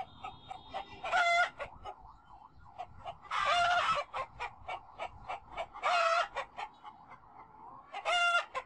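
Poultry calling: four loud, short calls about two seconds apart over constant rapid clucking.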